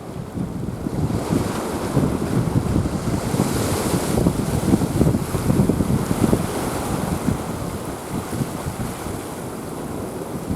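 Wind buffeting the microphone in uneven gusts over a broad rush of sea noise, strongest in the middle.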